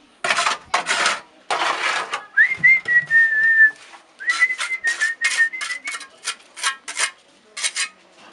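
Steel trowel scraping wet mortar across a concrete block wall in repeated short strokes, with a person whistling a short tune over the scraping from about two seconds in until about six seconds in.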